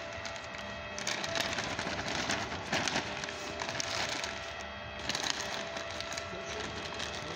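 Homemade soil mixer running: a steady machine hum with a few constant whining tones, while its rotating mixing paddles churn soil and peat in a metal trough, giving a gritty scraping and crackling that swells several times.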